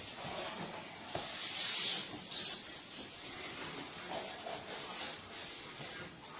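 Cat hissing: a longer hiss of under a second, then a short second hiss.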